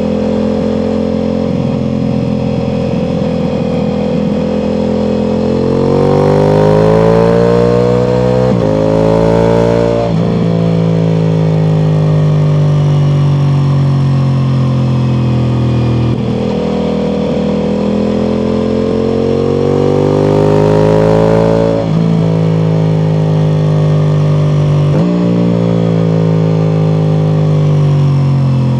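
Ducati Multistrada V4 Pikes Peak's V4 engine with Akrapovič exhaust under way. It holds a steady pitch at first, then revs up hard about six seconds in and again near the end, with sudden pitch steps at the gear changes and long slow falls in pitch as the bike eases off.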